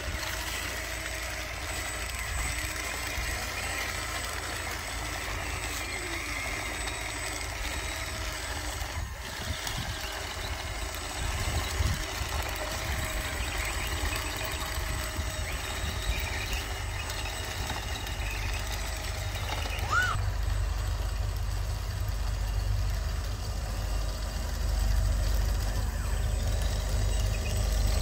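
Radio-controlled model bulldozer running as it pushes dirt with its blade: a steady mechanical whine from its small drive motors and tracks over a low rumble that grows louder in the last third.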